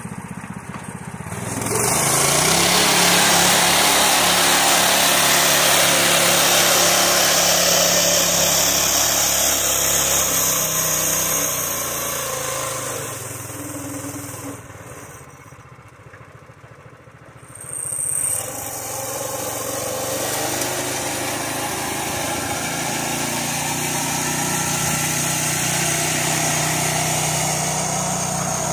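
Harbor Freight Predator 212 single-cylinder small engine powering a Farmall tractor, revving up about two seconds in and running hard under load as the tractor drives through a muddy creek. The engine sound falls away and goes quieter for a few seconds in the middle, then comes back up and runs steadily.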